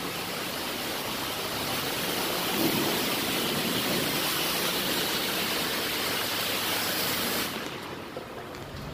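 High-pressure water spray hissing steadily against the side of a semi-truck in a truck wash bay, dropping away about seven and a half seconds in.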